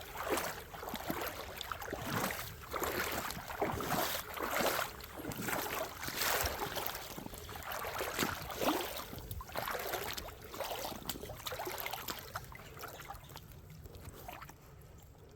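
Irregular footsteps and scuffing over wet, slick creek ground close to the microphone, tapering off near the end.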